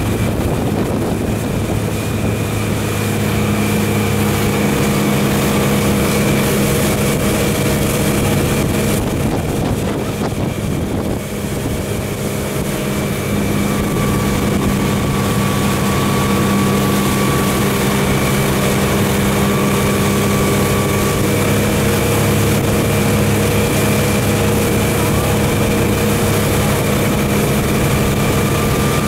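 Motorboat engine running steadily at speed, with wind noise on the microphone; the engine note dips briefly about eleven seconds in.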